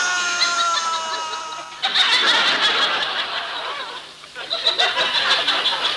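A long falling tone dies away in the first two seconds, then laughter in short bursts, with a brief break about four seconds in.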